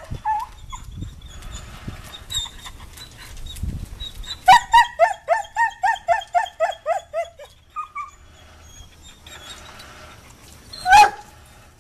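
A dog vocalizing: a quick run of about a dozen short, evenly spaced whining cries, each dipping in pitch, about halfway through, then a single loud bark near the end.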